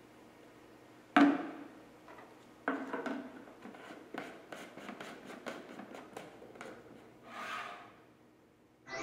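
A plastic jar and its screw cap handled on a tabletop: a sharp knock about a second in and another a second and a half later, then a run of small clicks as the cap is turned on the jar, and a short rustle near the end.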